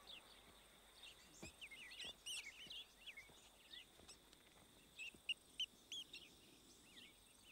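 Faint birdsong: small birds chirping, with a busy flurry of calls about two seconds in and a few clear, separate short chirps between five and six seconds in.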